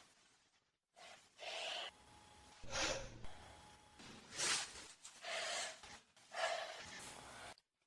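A person's short, sharp gasping breaths, about six in a row roughly a second apart: the catching inhales of a hayfever sneeze building.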